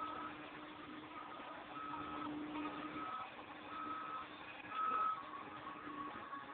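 Backup alarm of a CAT 903G compact wheel loader beeping about once a second while the machine reverses, with the engine running steadily underneath.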